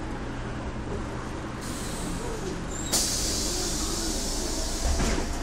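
The Mercedes-Benz OM447hA diesel of a 1996 Jelcz M122MB city bus idling low. About one and a half seconds in, compressed air from the bus's pneumatic system starts to hiss, and about three seconds in it turns into a sudden loud blast that carries on. A thump comes near the end.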